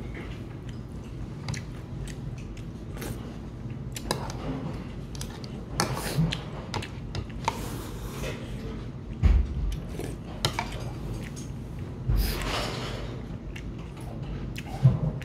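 Eating at the table: stainless-steel chopsticks and a spoon click and scrape against a plastic takeout bowl, with chewing in between. There are a couple of dull knocks about nine and twelve seconds in.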